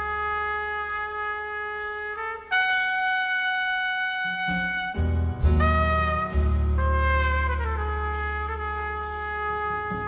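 Jazz orchestra's brass section playing sustained chords that change every second or two, with a slow downward slide in the harmony near the end, over heavy low bass notes that come in about halfway through.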